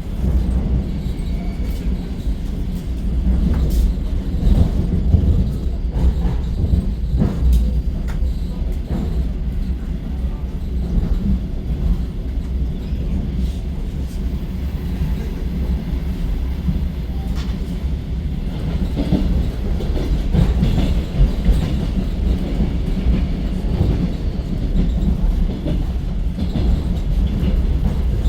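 Suburban electric train running along the line, heard from inside the carriage: a steady low rumble with a few sharp clicks of the wheels in the first several seconds.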